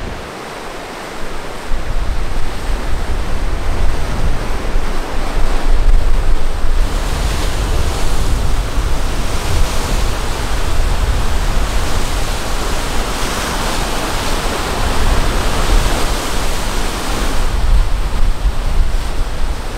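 Large waves breaking and surging against a rocky shoreline, a steady rushing wash of surf, with wind rumbling on the microphone. The surf is quieter at first and gets much louder about two seconds in.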